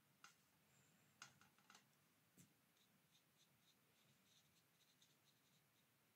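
Near silence, with a few faint soft clicks in the first two and a half seconds, then faint light ticking of a watercolour brush working on paper.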